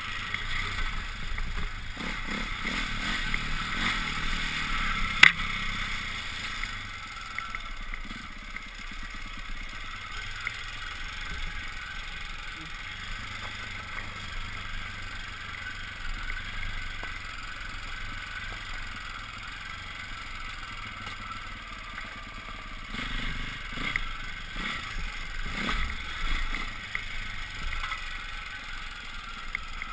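Off-road motorcycle being ridden along a gravel track, the engine running under tyre and stone noise, with a sharp knock about five seconds in.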